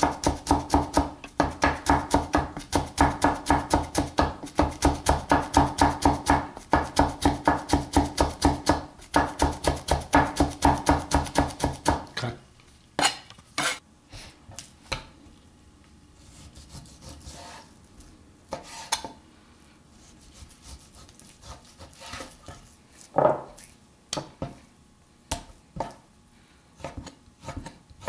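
Cleaver chopping on a wooden butcher-block board, fast even strokes about four a second as lime leaves are thinly sliced. About twelve seconds in this gives way to scattered single knife strokes and knocks as raw beef is sliced.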